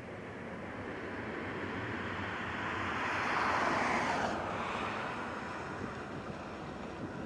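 Jet engine rush of a taxiing Boeing 777-300ER with GE90 engines. It swells to a peak about three to four seconds in, then drops in pitch and fades.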